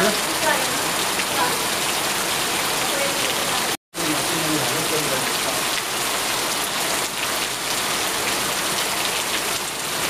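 Steady rain falling, an even hiss, with the sound cutting out for a split second just before four seconds in.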